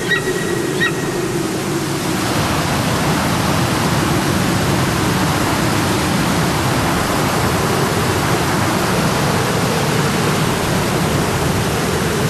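A steady rushing noise, like wind on an open hillside or running water, that swells about two seconds in and then holds even.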